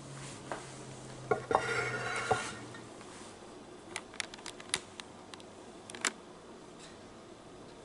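Dishes and utensils clattering: a scrape and clatter about a second and a half in, then a run of light, sharp clinks a few seconds later.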